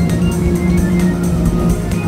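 Electronic background music with a steady beat and held organ-like notes.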